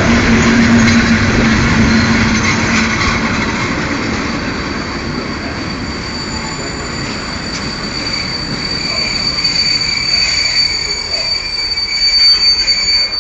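A freight train hauled by an FS E652 electric locomotive passes close by: a low hum as the locomotive goes by in the first few seconds, then the rumble of the freight wagons rolling past. A steady high wheel squeal sets in after about three seconds and is loudest near the end.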